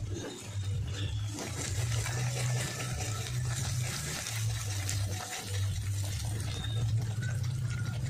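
Egg and vegetables sizzling and crackling in hot oil in a wok, with a metal spatula stirring and scraping through them, over a steady low hum.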